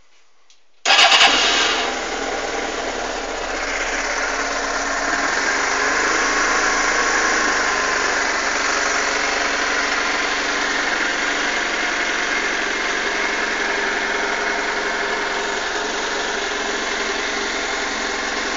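Suzuki GSX-R600 SRAD inline-four motorcycle engine catching suddenly about a second in, then idling steadily; the idle is rough.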